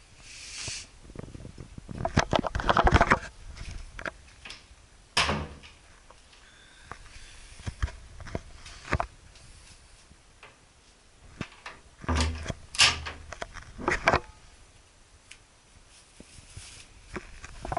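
Handling noise from a small camera being carried and moved about: irregular knocks, clicks and rustles, with louder clusters of bumps about two, five and twelve to fourteen seconds in.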